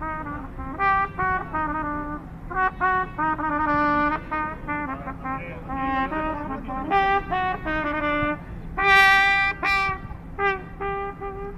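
A trumpet played solo: a tune of short, separate notes, with a loud, bright high note held for about a second near the end.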